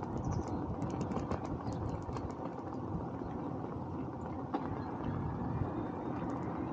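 Steady road and wind noise from a bicycle ride: tyre rumble and wind on the microphone, with a few faint ticks.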